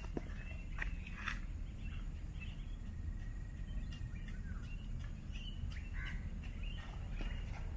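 Outdoor evening ambience on a footpath: a steady low rumble and a thin, steady high-pitched tone, with scattered bird chirps. A few footsteps on asphalt sound in the first second and a half, then stop.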